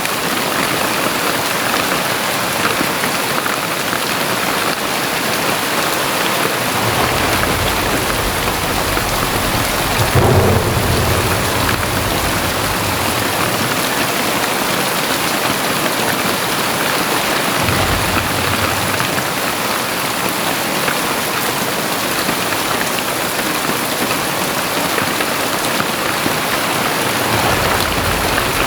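Heavy rain pouring steadily, a dense even hiss. A low rumble comes and goes under it, swelling loudest about ten seconds in.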